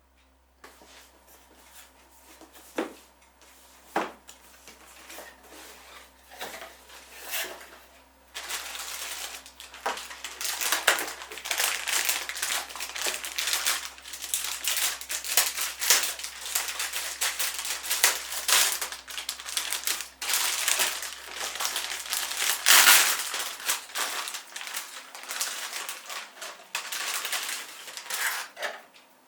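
Hands handling packaging: a few sharp clicks at first, then from about a third of the way in, long stretches of loud crinkling and rustling, like plastic wrap and bags being handled.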